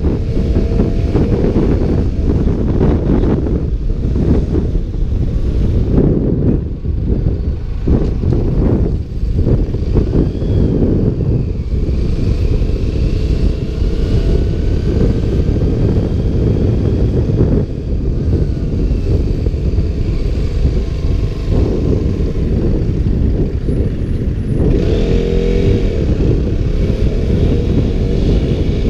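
Wind buffeting a GoPro's stock microphone inside its waterproof case, over a KTM Duke motorcycle's engine running underneath, its pitch rising and falling as the bike accelerates and slows. The engine stands out more clearly near the end.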